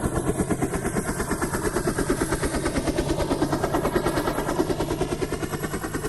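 Helicopter rotor chopping in a steady rapid beat of about eight pulses a second, coming up in level just before and easing off near the end, as in a fly-past.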